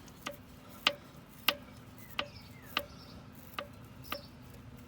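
Connecting rods being rocked by hand on the crankshaft, giving seven sharp metallic clicks at uneven intervals of about half a second. The clicks come from play in the rods, which the owner suspects are bad rod bearings.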